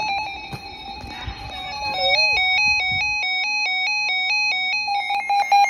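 Electronic emergency alert tones, heralding a severe thunderstorm warning. A steady electronic tone plays first, then from about two seconds in a fast warble steps back and forth between two pitches, several times a second.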